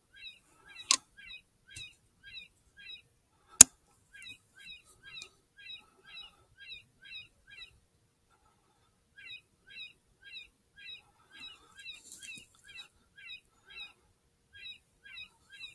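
Electronic predator caller playing a looped squeaky animal call, short identical notes about two and a half a second, pausing once briefly near the middle. A single sharp rifle shot cracks about three and a half seconds in, the loudest sound, after a lighter click.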